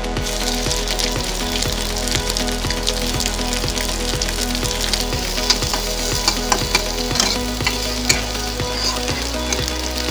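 Sliced onions and green chillies sizzling in hot oil in a black iron kadai, stirred with a spatula that scrapes and clicks against the pan. The sizzle starts right at the beginning.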